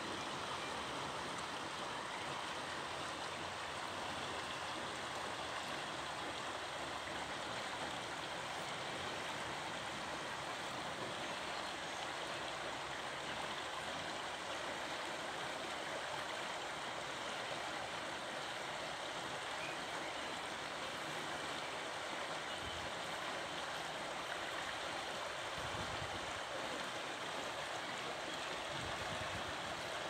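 Steady rushing and burbling of a shallow river's running water.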